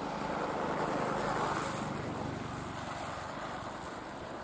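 Rushing noise of a passing vehicle that swells about a second in and then slowly fades.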